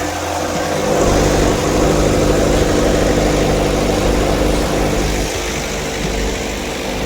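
A vehicle engine running steadily at idle, growing louder about a second in and easing off again after about five seconds.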